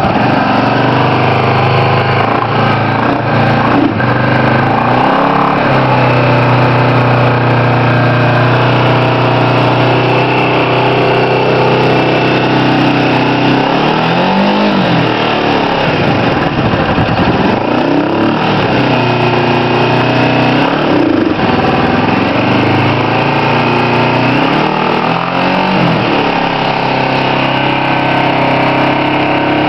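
2009 Kawasaki EN500 Vulcan's parallel-twin engine idling steadily, with the throttle blipped several times in the second half so the revs rise and fall back to idle.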